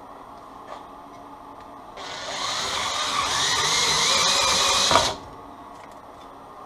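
Cordless drill running for about three seconds, spinning a drill-driven cable stripper as a wire is fed through it to strip off the insulation; its whine climbs slightly, then the drill stops abruptly.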